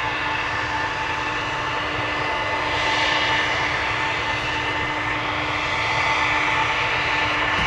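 Gulfstream G600 business jet taxiing, its two Pratt & Whitney PW815GA turbofans running on low power: a steady whine over a rushing hiss. The sound swells slightly about three seconds in and again near six seconds.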